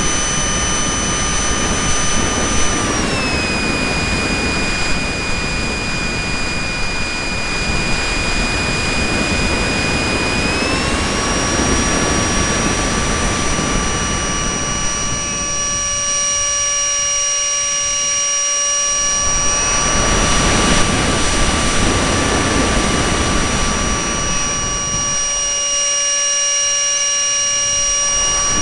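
Electric radio-controlled model airplane's motor and propeller whining in flight, heavily buffeted by wind noise on the microphone. The whine drops in pitch about three seconds in and climbs back up around eleven seconds in as the throttle changes. The wind rumble eases off twice later on.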